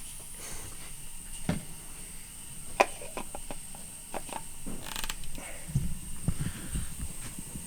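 Irregular mechanical clicks, knocks and creaks, with a sharp click about three seconds in, a short clatter about five seconds in, and low thumps near the end.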